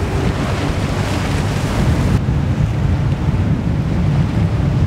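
Wind buffeting the microphone over the wash of churned-up water alongside a passing ship's hull. A heavy low rumble throughout, and the higher hiss of the water drops away abruptly about two seconds in.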